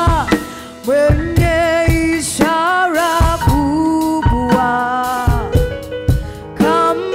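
Live gospel worship music: several singers on microphones over keyboard and drums. The music dips briefly just after the start, then comes back in about a second in.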